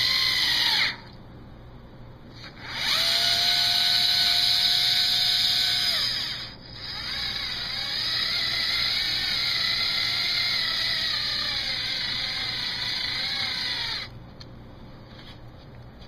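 Black & Decker Gyro 4-volt cordless screwdriver's motor whining as it drives screws into a board. It runs in three bursts: a short one at the start, a steady one from about three to six seconds in, and a longer one from about seven to fourteen seconds in whose pitch wavers as the speed changes.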